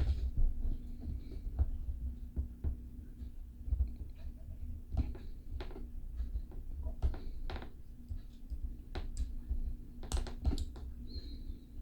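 A small hand tool and a diecast toy car being worked on a bench: irregular light clicks and soft knocks as a wheel axle is fitted back into place, over a faint steady hum.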